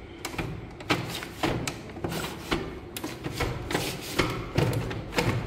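An old office printer's plastic parts clicking and knocking irregularly, about two sharp clicks a second, around its paper feed, which is failing to pick up paper.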